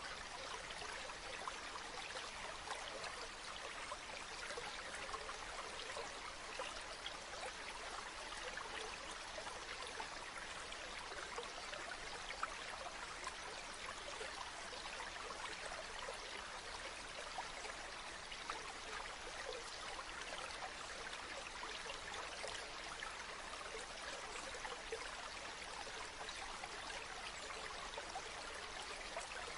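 Stream water running, a steady rush dotted with many small trickles and splashes.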